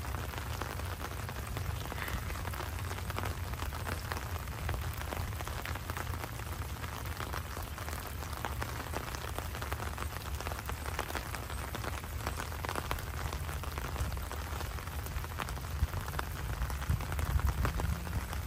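Rain pattering close by, a dense run of small drop ticks, over a steady low rumble that grows a little louder near the end.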